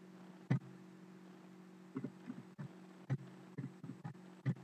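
Irregular sharp clicks of a computer keyboard and mouse, one about half a second in and then a quick run of them over the last few seconds, over a steady electrical hum.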